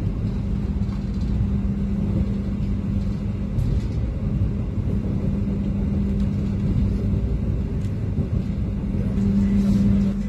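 Moving Purwojaya passenger train heard from inside the coach: a steady running rumble with a low, even hum underneath. It swells louder for a moment shortly before the end.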